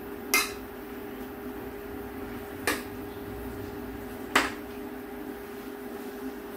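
A metal spoon knocking against a black cooking pot three times while kimchi is stirred and fried, over a steady low hum.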